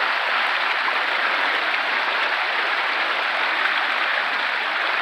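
Steady rush of water pouring through a fish ladder, an even roar with no breaks.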